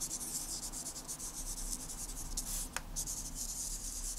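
Felt-tip pen writing on paper: a run of quick, scratchy strokes, broken by a short pause with a small click a little past halfway.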